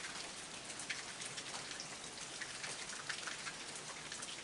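Steady rain falling at night, an even hiss with many separate drops tapping.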